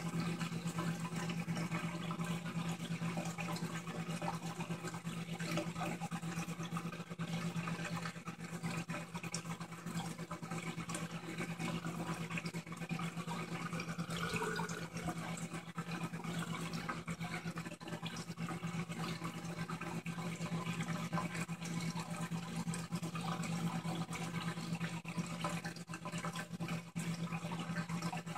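Aquarium equipment running: a steady low hum with water trickling and churning constantly over it.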